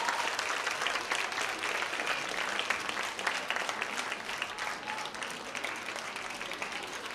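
Audience applauding, a dense clatter of hand claps that slowly eases off.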